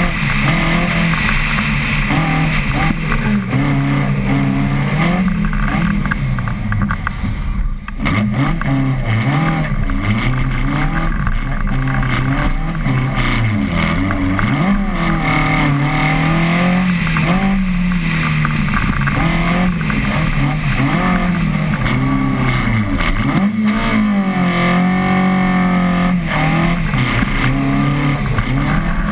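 Mk 1 Ford Cortina rally car's engine revving hard, its pitch rising and falling again and again as it accelerates out of corners and lifts off into them. The revs drop briefly about eight seconds in.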